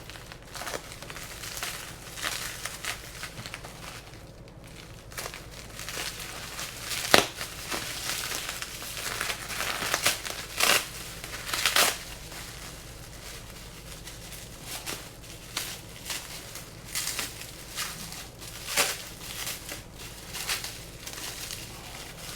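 Packing material crinkling, rustling and tearing as a wrapped parcel is opened by hand, with irregular crackles and sharp snaps, the loudest about seven seconds in.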